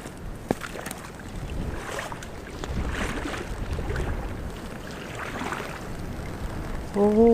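Water sloshing and swishing around waders as someone wades through a pond, with wind on the microphone. Near the end comes a short steady pitched tone, about a second long, the loudest sound.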